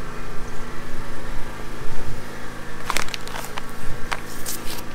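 A steady low hum, with a cluster of sharp clicks and scrapes from about three seconds in.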